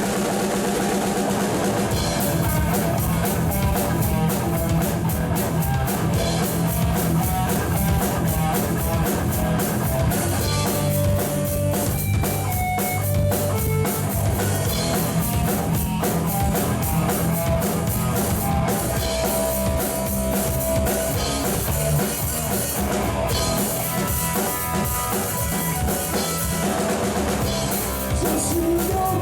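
Rock band playing an instrumental passage: drum kit keeping a steady fast beat under electric guitar and low sustained bass notes, with no singing.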